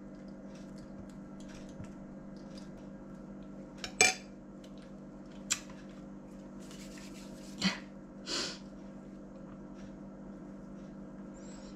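A metal spoon clinking a few sharp times against a china bowl and plate, with a short scrape, as crêpes are layered and spread with mayonnaise. A steady low hum runs underneath.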